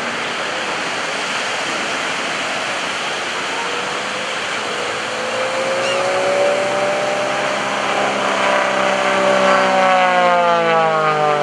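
Pitts S-1S aerobatic biplane's piston engine and propeller droning overhead, growing louder from about halfway through. Its pitch rises slightly and then falls near the end as the plane pulls up into a vertical climb. A steady rushing background of beach surf runs underneath.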